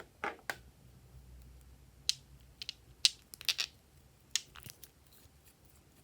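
Glossy slime being handled, giving sharp popping clicks. Two fuller pops come right at the start, then a run of crisper clicks, loudest around two and three seconds in.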